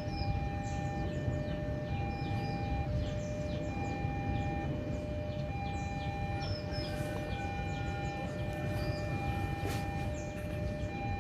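Steady siren-like electronic warning tone in two pitches, held in long notes broken by short gaps about every one and a half seconds, over a steady low rumble, with birds chirping.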